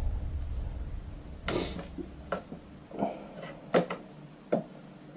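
Light handling noises of small parts and tools on a workbench: a short scrape about one and a half seconds in, then four sharp clicks under a second apart.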